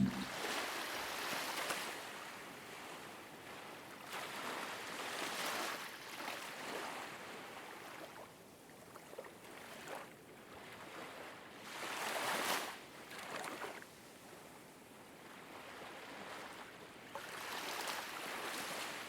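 Ocean waves washing in and out, swelling and fading every few seconds, with the loudest swell about twelve seconds in.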